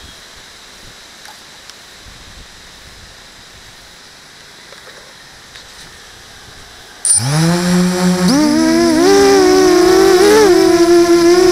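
Faint steady hiss, then about seven seconds in a small FPV multirotor's electric motors and propellers spin up with a rising hum. The pitch holds, wavers and climbs with the throttle, then drops near the end.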